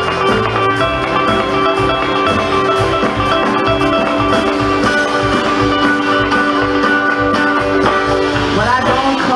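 Live acoustic string band playing an instrumental break: guitar and other plucked strings with held notes over upright bass, on a steady beat.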